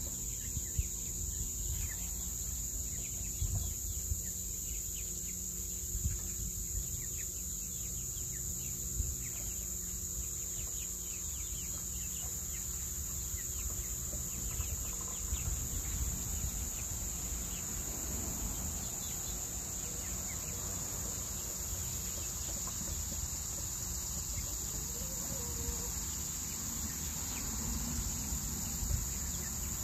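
Steady high-pitched drone of summer insects, with occasional soft calls and peeps from young chickens foraging, over a low rumble.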